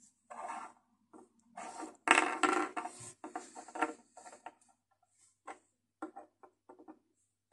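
Small plastic spare heads from NECA Terminator action figures being handled and set down on a wooden tabletop: quiet taps and rubbing, busiest a few seconds in, then a quick run of small separate clicks near the end.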